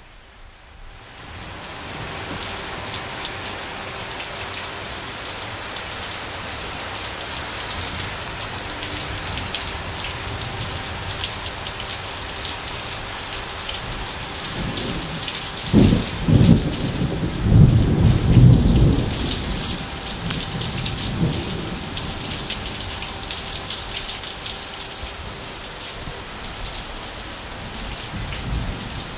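Heavy rain pouring steadily onto a tiled patio and lawn. About halfway through, a loud clap and rumble of thunder rolls for a few seconds, followed by a smaller rumble soon after.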